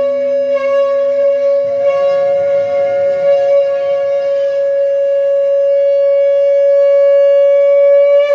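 Conch shell blown in one long held note, rich in overtones, swelling slightly before it stops.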